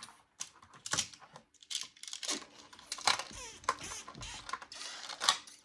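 Plastic magnetic building tiles clicking and clacking as they are snapped together and set down, in a string of separate sharp clicks at irregular intervals.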